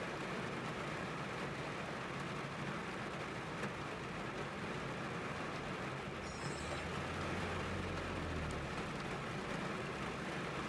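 Rain falling on a car's roof and windows, heard from inside the cabin as a steady, even hiss. A faint low rumble comes in about six and a half seconds in and fades two seconds later.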